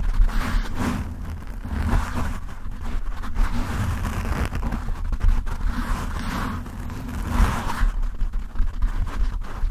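Fingertips and nails scratching a foam microphone windscreen right on the mic: a continuous rough scraping with a heavy low rumble, swelling and easing about every second.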